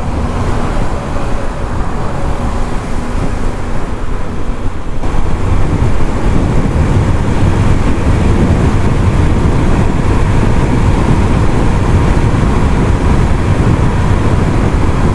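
Motorcycle running at highway speed, about 80 km/h: engine and road noise mixed with wind noise on the microphone, growing louder about five seconds in and then holding steady.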